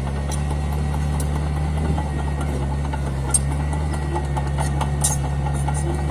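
Mini bulldozer's diesel engine running steadily at a low, even note while it levels fill soil, with a few sharp clicks, most clearly about three and five seconds in.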